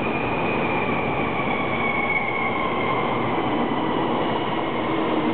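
Taiwan High Speed Rail 700T train running alongside the platform. A steady rushing noise carries a high whine that drops slowly in pitch.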